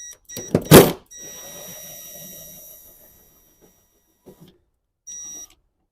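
A socket tool working a 10 mm nut off the tailgate studs. There is a loud clunk about half a second in, then a steady whirring with a thin high whine for about two seconds, and a brief whine again near the end.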